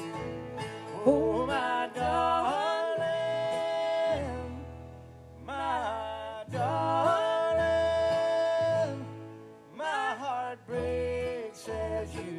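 Live bluegrass song: a strummed acoustic guitar and a mandolin over a stepping bass line, with singing that holds two long notes, about three seconds in and again near the middle.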